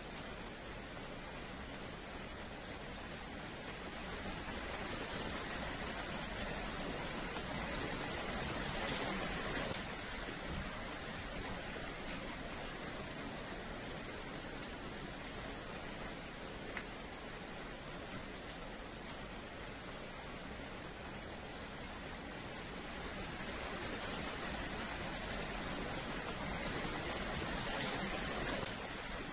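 Steady rain falling on wet paving, swelling louder twice and dropping back suddenly each time.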